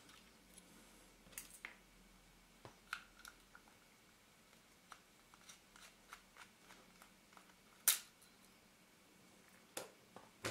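Faint, scattered clicks and taps of a small screwdriver and metal and plastic parts being worked in an opened Canon EOS 450D camera body while a tiny screw is undone. One sharper click comes about eight seconds in.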